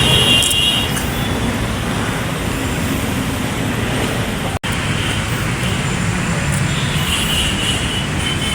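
Steady background noise, traffic-like, with a brief cut-out about halfway through and a faint high tone near the end.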